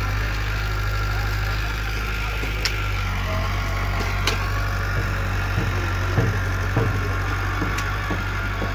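Small crawler bulldozer's diesel engine running steadily with a low hum, with a few sharp knocks and clunks over it from about two and a half seconds in.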